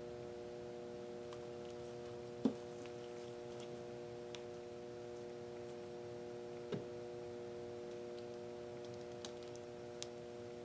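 A steady hum made of several even tones, with two light knocks about two and a half and seven seconds in, the first louder, and a few faint ticks near the end.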